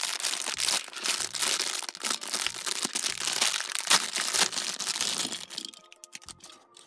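Thin clear plastic bag crinkling and rustling as it is pulled open and a small plastic toy is worked out of it. The crinkling stops near the end, and quiet background music with light ticks comes in.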